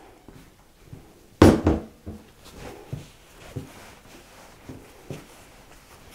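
Risen yeast dough being kneaded by hand on a floured silicone mat: soft dull thumps and rubbing, about one or two a second. A single louder thump comes about a second and a half in.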